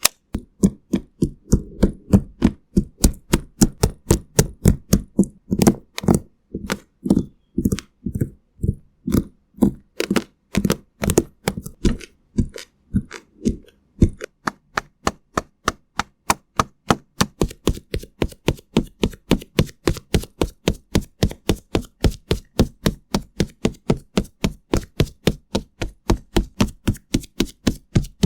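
Rapid, even tapping of short, crisp knocks, about three to four a second, slightly faster in the second half.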